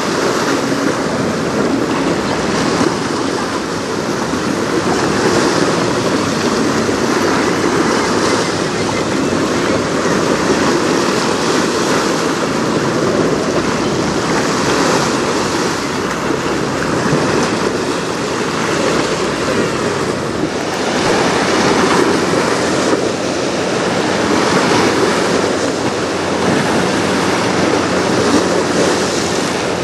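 Wind buffeting the microphone over choppy river water, a steady rushing wash of wind and waves. Near the end, a small outboard motor's low hum comes in faintly underneath.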